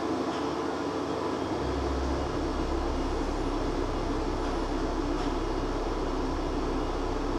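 Hydraulic lift machinery under a Carl Zeiss Universarium IX star projector running steadily as the projector shaft opens. A low hum sets in about a second and a half in and holds.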